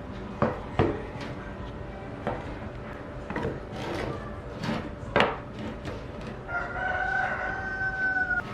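Scattered sharp knocks and taps, then about six and a half seconds in a single long pitched call held for about two seconds, in the manner of a rooster's crow.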